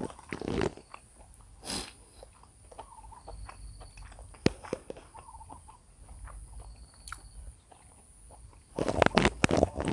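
Eating sounds: scattered clicks and chewing noises, with a few faint high bird chirps in the background and a louder run of clattering and crunching about nine seconds in.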